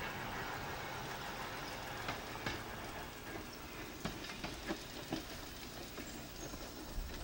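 Streetcar running along the track: a steady running noise with a scattering of sharp clicks and knocks from the wheels on the rails, mostly between about two and five seconds in.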